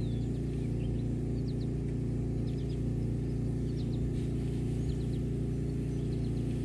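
Pressure washer's engine running steadily, with small birds chirping in short bursts over it.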